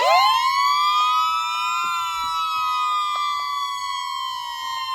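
A siren winding up sharply to a steady high pitch, sounding as two close tones, then slowly sinking in pitch.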